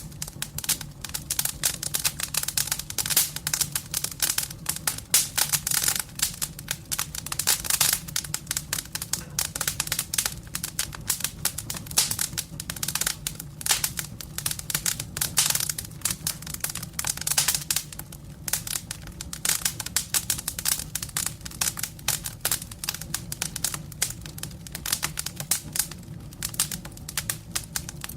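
Wood fire crackling: dense, irregular snaps and pops over a low steady rumble of the flames.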